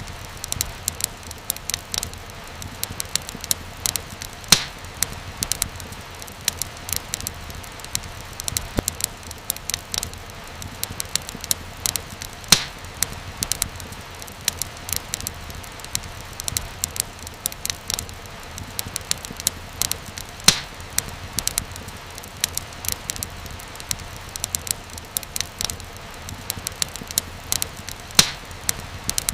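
Wood fire crackling in a fireplace: irregular snaps and pops over a steady low rush of flame, with a few louder pops scattered through.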